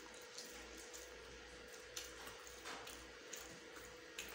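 Faint wet eating sounds: soft smacks and squishes of instant noodles being chewed and picked up by hand, a few short ones scattered through, over a steady faint hum.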